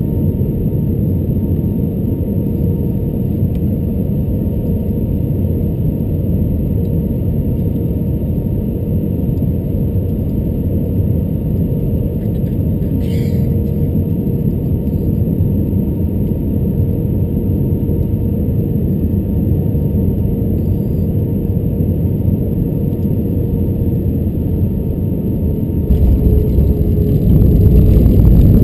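Airbus A320-200 cabin noise on final approach: a steady engine and airflow rumble with a faint steady whine. About 26 seconds in, the rumble jumps louder and keeps rising at touchdown as the ground spoilers deploy and the jet rolls out on the runway.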